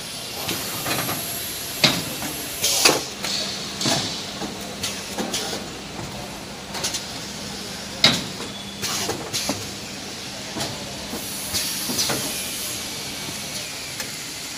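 XY-AI-653D kitchen towel roll bundle packing machine running, with sharp clacks of its moving parts about once a second over a steady hiss of air.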